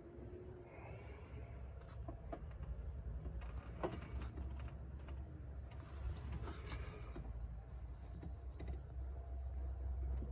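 Faint scattered clicks and short scrapes from a wrench and steel-pipe cheater bar shifting under strain on the oil filter adapter's torque bolt, which is held by factory red Loctite and won't break loose. A low rumble runs underneath.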